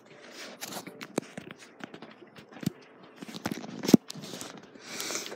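Handling noise from a phone being moved about against clothing and fingers: rubbing and scraping with scattered clicks, and one sharp knock about four seconds in.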